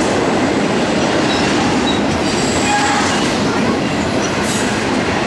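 Double-stack intermodal train's loaded well cars rolling by: a steady rumble and rattle of wheels on rail, with a few brief, high wheel squeals.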